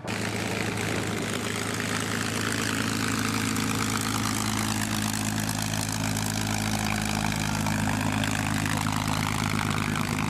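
Aircraft engine running steadily at low power, cutting in abruptly, with a steady low hum under a rushing noise.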